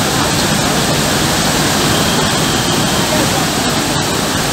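Muddy floodwater rushing in a torrent down a channel and spilling over its wall, a loud, steady rushing noise.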